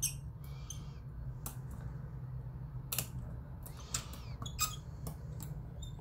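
Rotor pick working the pins inside a Cisa Astral lock cylinder: scattered small metallic clicks and a few short squeaks, over a steady low hum.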